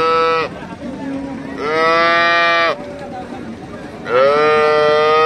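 A young calf mooing in high, steady-pitched calls: the end of one call at the start, a second call of about a second, then a long call beginning about four seconds in.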